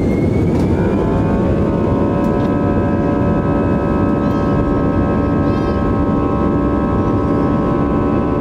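Airbus A320 jet engines spooling up for takeoff, heard from the cabin. Their whine rises about a second in and settles into a steady, many-toned fan whine over a loud low rumble as the takeoff roll gets under way.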